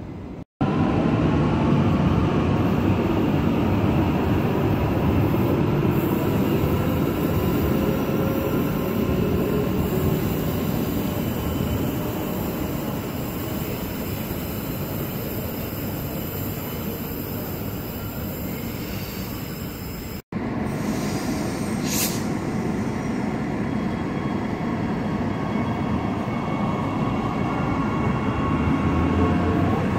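Queensland Rail electric multiple-unit commuter train running through the station: a steady rumble of wheels on rail with faint whining tones and some wheel squeal. The sound breaks off briefly twice, and a sharp click comes shortly after the second break.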